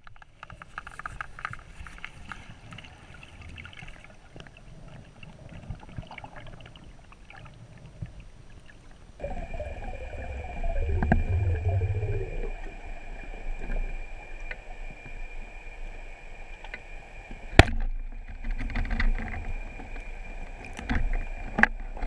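Underwater sound picked up by a camera in its housing: a muffled rush of water with scattered sharp clicks and knocks. The rush grows louder about nine seconds in, and the sharpest click comes about four-fifths of the way through.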